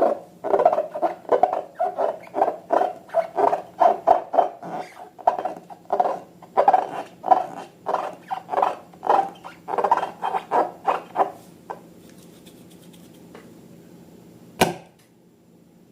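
Slime being squeezed and worked by hand: a run of squishy strokes, about two or three a second, that stops about three-quarters of the way in, followed by a single sharp click.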